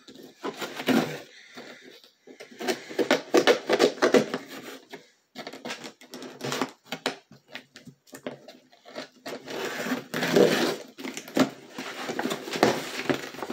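Cardboard and plastic packaging being handled and opened by hand: irregular rustling, crinkling and small clicks and taps.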